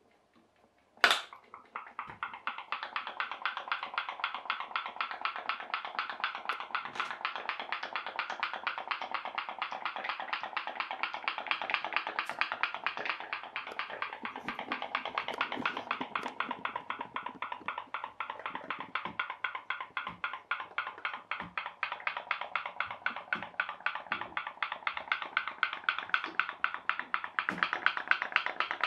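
Tealight-heated pop-pop (putt-putt) steam boat running: a sharp click about a second in, then a rapid, even popping from its boiler that keeps on. The popping means the refilled boiler has boiled up and the steam pulses are driving the boat along.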